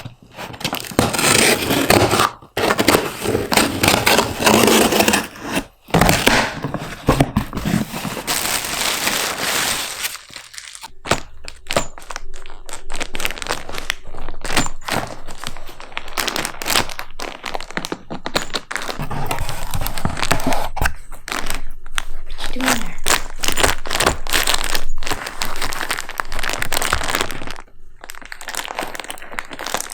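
Cardboard box and packaging being handled, scratched at and torn, with crinkling and many sharp cracks and thumps throughout.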